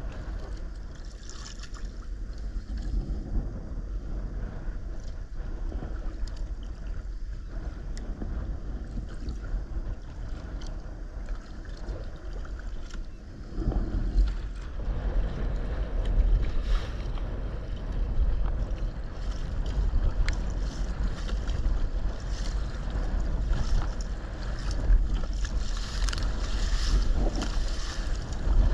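Water sloshing and splashing against a sea kayak's hull as it is paddled, under wind buffeting the microphone. The wind rumble steps up about halfway through, and splashes from paddle strokes and chop at the bow come more often near the end.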